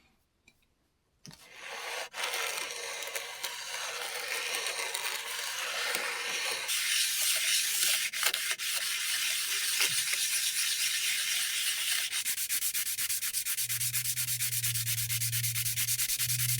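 Sanding wood: a steady scratchy rasp of abrasive on the wooden box's top edges, levelling them so the lid will sit flush. It starts about a second in, turns brighter and thinner about halfway through, and becomes quick regular strokes near the end, with a low hum joining in the last few seconds.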